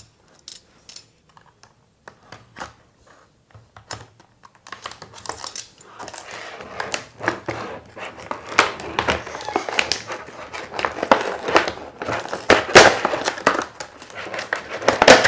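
Stiff clear plastic blister packaging crackling and crinkling as it is pried and pulled open. A few scattered clicks at first, then dense crackling from about five seconds in, with loud sharp snaps near the end.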